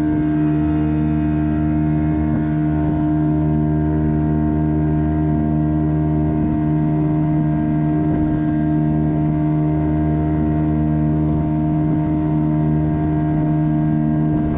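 A boat's outboard motor running steadily at one unchanging speed.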